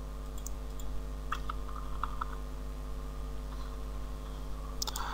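A few faint, scattered clicks of a computer mouse and keyboard over a steady low electrical hum.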